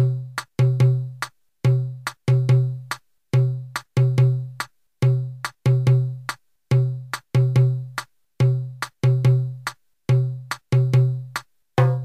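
Dance music intro: a sparse, repeating figure of short, punchy low pitched hits, each with a sharp click, played in quick groups that repeat about every 1.7 seconds.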